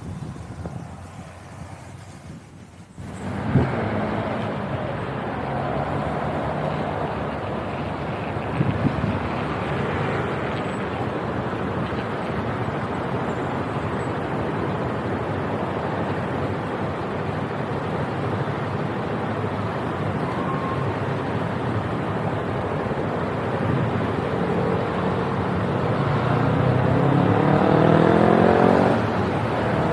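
Riding on a motorbike: steady wind and road noise mixed with the engine, jumping up sharply about three seconds in. Near the end the engine note rises as it accelerates.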